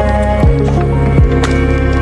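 Background music with a steady beat: deep drum hits that drop sharply in pitch, over held synth chords.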